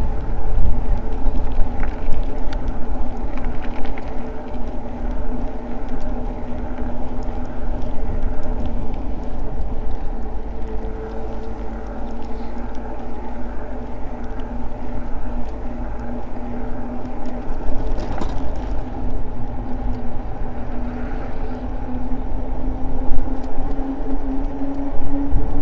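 Eahora Juliet e-bike under way: its motor gives a steady whine of several tones that slides slightly higher over the last few seconds, over a low wind rumble on the microphone.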